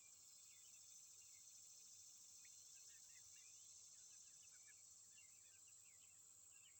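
Faint ambience: a steady high-pitched insect drone with many short, quick bird chirps scattered over it.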